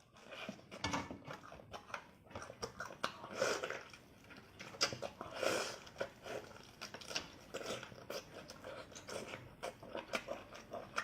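Close-miked chewing and biting of boiled octopus: irregular wet mouth smacks and clicks.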